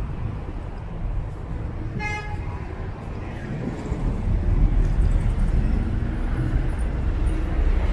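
Steady low street-traffic rumble, with one short car-horn toot about two seconds in.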